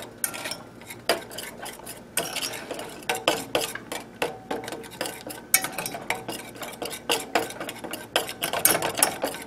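A utensil stirring a thick miso glaze in a stainless steel saucepan, scraping and clinking irregularly against the pot's sides and bottom.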